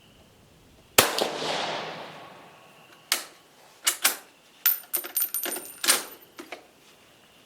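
A single rifle shot from an Italian Vetterli 1870/87/15, a bolt-action rifle firing a light cast-bullet load: a sharp crack with a tail that dies away over about a second. A few seconds later come a string of sharp metallic clicks and clacks, some with a thin ring, as the bolt is worked to cycle the action.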